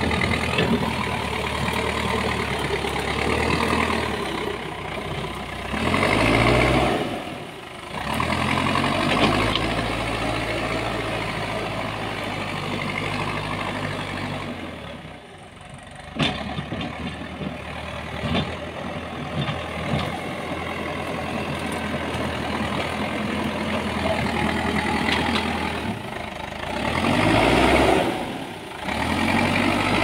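Manitou backhoe loader's diesel engine running under work, with two surges in engine speed, one around 6 seconds in and one near the end, and a single sharp knock about halfway through.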